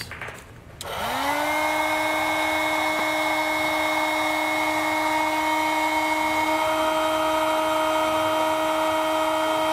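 Electric heat gun switched on about a second in: its fan motor winds up quickly to a steady whine over a rush of blown air, and holds there.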